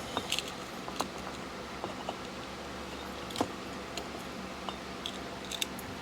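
Scattered small clicks and ticks of hands handling a replacement 3-speed ceiling fan pull-chain switch and its wires, the loudest about three and a half seconds in, over a faint steady hum.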